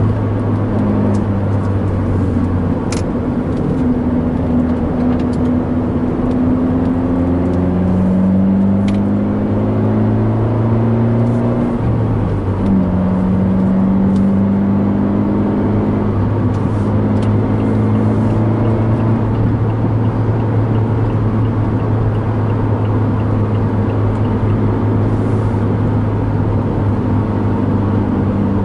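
Abarth 124 Spider's 1.4-litre turbocharged four-cylinder engine running steadily under light load, heard from inside the cabin over road and tyre noise. Its pitch climbs slowly and then drops at an upshift about twelve seconds in, with a few light clicks in the first ten seconds.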